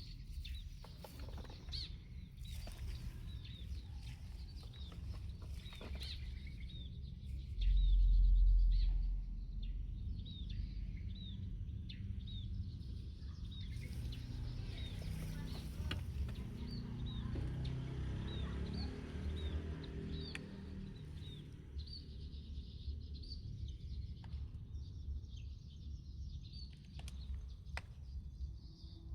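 Small birds chirping over and over in short high notes, over a steady low rumble, with a brief low bump about eight seconds in.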